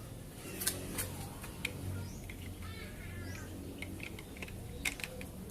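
A few short, sharp plastic clicks and knocks as a smartphone holder is fitted onto the tripod head before being locked. Faint bird chirps come through in the background.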